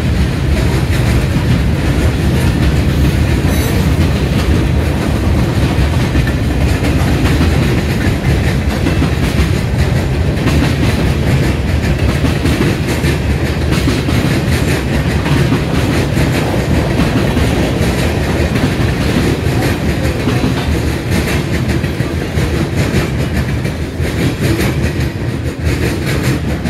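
CSX freight cars, including tank cars, hoppers and boxcars, rolling past at close range with a steady clatter of steel wheels on the rails. The sound eases off a little near the end as the last cars go by.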